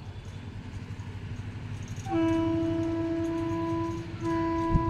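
Express train's horn sounding as it runs through the station without stopping: a long blast starting about two seconds in, a brief break, then a second long blast, over the rumble of the oncoming train. A sharp knock comes near the end.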